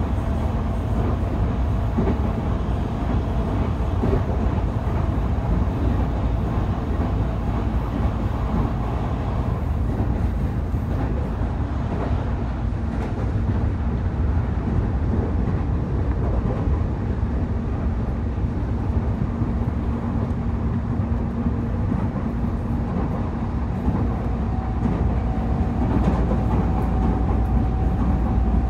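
Running sound of a JR East E531 series electric commuter train at speed, heard from inside the passenger car: a steady rumble of wheels on rail with a few faint steady tones above it.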